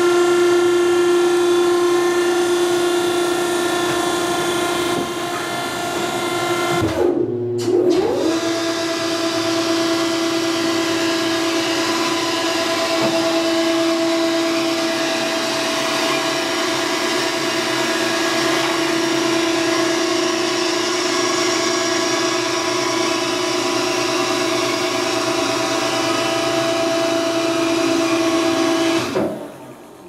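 Cram-A-Lot DB-60-LU vertical baler's hydraulic power unit, a 10 HP electric motor driving the pump for the 6-inch ram cylinder, running with a steady whine. About seven seconds in its pitch sags, drops out for a moment and picks back up, and near the end it stops.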